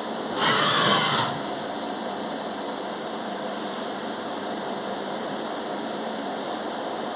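Machine running steadily, most likely the CNC vertical machining centre, with a short hiss lasting under a second near the start.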